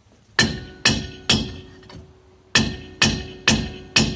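Rear brake drum of a 1992 Fiat Ducato struck with a hammer: three blows about half a second apart, a pause, then four more, each leaving the drum ringing. The blows are knocking the drum loose to pull it off the hub.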